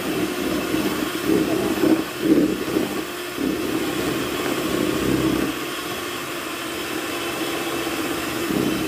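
Electric hand mixer running steadily, its beaters whipping eggs and sugar in a bowl: a continuous motor hum and whine, a little louder and more uneven in the first few seconds.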